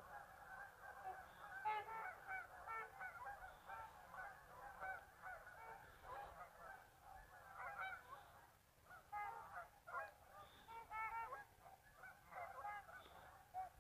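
A large flock of geese honking in flight: a dense chorus of many overlapping calls that swells and eases.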